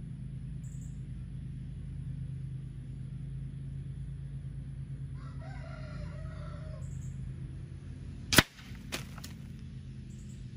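A regulated AEA Challenger .357 bullpup PCP air rifle fires one slug: a single sharp crack about eight seconds in, followed within a second by two fainter knocks. Before the shot a rooster crows once, over a steady low hum from a fan.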